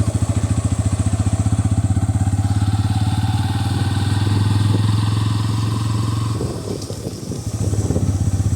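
Bajaj Pulsar N160's single-cylinder engine running with a steady pulsing beat. About six and a half seconds in the engine note drops away and goes uneven for a second or two, as if the throttle is eased, then picks back up.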